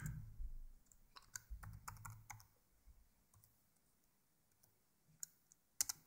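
Faint keystrokes on a computer keyboard: a run of light key taps in the first couple of seconds, then a few more taps near the end.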